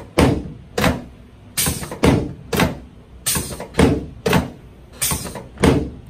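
About ten sharp thumps on a padded chiropractic table in quick succession, as hand thrusts are delivered down onto the lower back over the sacroiliac joints.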